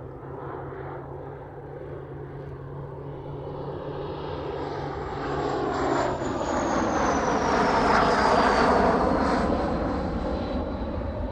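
Jet aircraft flyby sound effect: jet engine noise building up, loudest about eight seconds in, with a high whine sliding down in pitch as it passes, then easing off. A low steady hum runs under the first six seconds.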